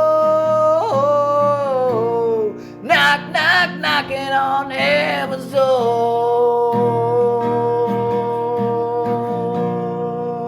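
Closing bars of a song: a voice holds long notes over plucked and strummed acoustic guitar. About three seconds in it breaks into a quick run of higher notes, then settles on one long held note that slowly fades.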